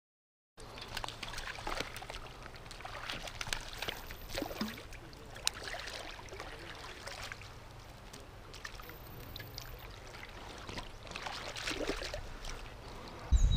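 Splashing and sloshing water as a hooked trout thrashes at the surface and is scooped into a landing net, many short sharp splashes over a steady wash of moving water.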